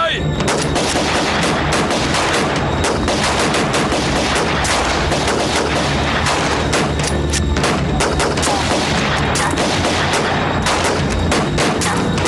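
Heavy rifle fire from many guns at once, the shots overlapping in a dense, unbroken crackle of gunfire.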